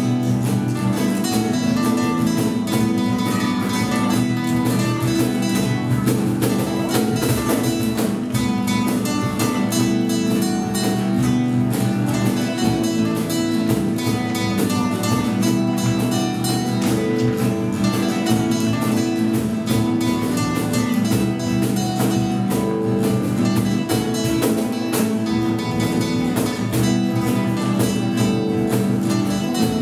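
Four classical guitars playing a piece together, a steady stream of strummed chords and plucked notes.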